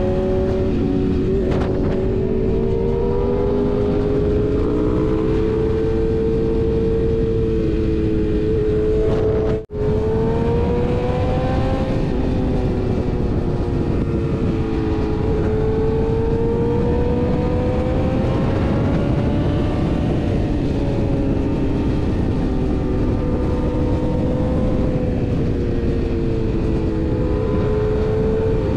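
BMW S1000RR inline-four sport bike engine pulling at cruising speed, its note rising and falling gently as the rider rolls the throttle through the curves. It plays over a steady low rush of riding noise, with a momentary dropout about ten seconds in.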